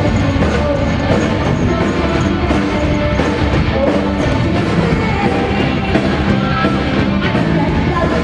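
A live rock band playing loud, with guitars, drums and some singing, filling a large hall.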